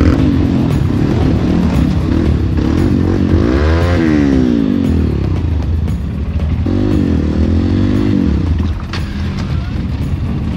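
Trail motorcycle engine running with a heavy low rumble. It revs up and falls back twice: about four seconds in, and again around seven to eight seconds in.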